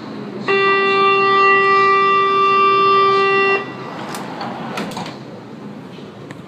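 Metro train's door-closing warning tone: one long steady beep lasting about three seconds that cuts off abruptly, followed by a few faint knocks.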